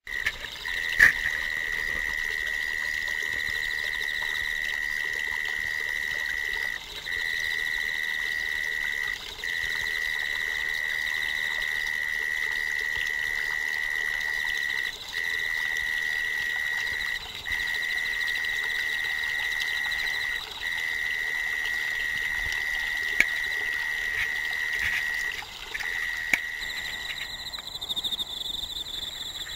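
A singing autumn insect trilling continuously at one high, steady pitch, breaking off briefly every few seconds. Near the end it stops and a higher-pitched insect song takes over.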